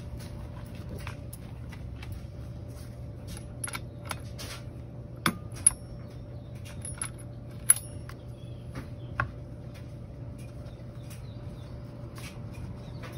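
Scattered small metallic clicks and clinks of pliers and parts being handled while the spark plug and plug boot go back onto a string trimmer's engine, with a few sharper clicks around the middle, over a steady low hum.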